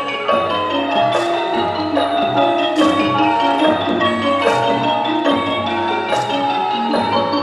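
Thai classical piphat ensemble music accompanying dance: ranat xylophones and gong circles playing a busy melody, with a bright metallic stroke about every one and a half seconds.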